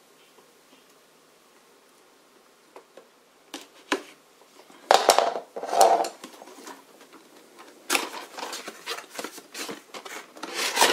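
A small cardboard figure box being opened by hand. A few light taps and clicks are followed by scraping and crinkling about five seconds in, then steady rustling and sliding of cardboard from about eight seconds in, as the inner box is drawn out of its sleeve.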